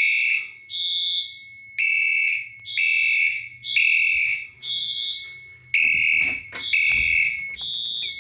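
Fire alarm horn strobe (a polymer horn strobe) sounding a temporal-three evacuation pattern: three loud, high-pitched horn blasts about half a second each, then a pause of about a second and a half, repeating.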